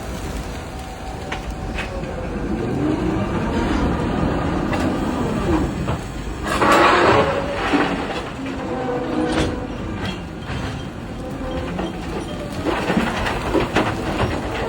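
Electric excavator at work, its drive motors whining up and down in pitch over a steady machine din, with scattered clanks. About seven seconds in comes a loud rushing crash of ore pouring from the bucket into a rail wagon.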